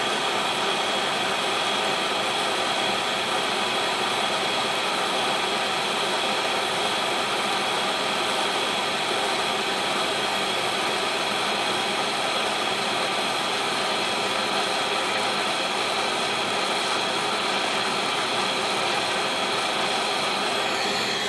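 Jeweller's soldering torch flame hissing steadily while it heats a band ring to flow hard solder at the seam; the hiss drops away at the very end.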